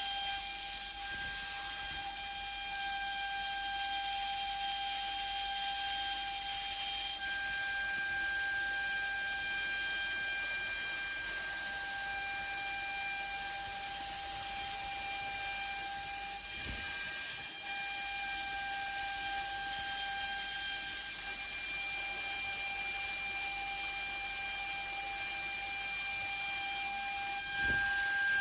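Rotary CNC router at work: a steady high-pitched spindle whine over a constant hiss, its strength shifting slightly as it runs.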